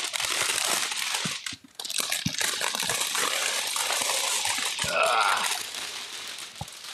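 Clear plastic shrink wrap crinkling as it is torn and pulled off a cardboard box, with a brief pause about a second and a half in.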